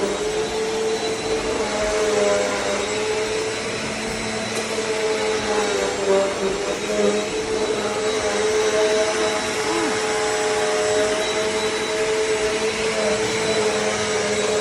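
Eureka AirSpeed NEU10AE5 bagless upright vacuum cleaner running steadily: a rushing airflow with a motor whine that shifts slightly in pitch as it is worked.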